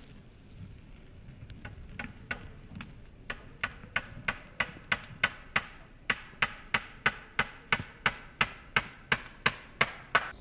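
Hand hammer striking wood in a steady run of sharp knocks, about three a second, starting loosely about two seconds in and settling into an even rhythm with a brief pause midway.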